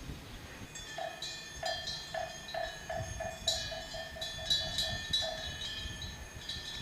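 Bright metal bells or chimes ringing, with a run of hollow pitched knocks that starts about a second in, speeds up into a quick roll and stops a little after five seconds.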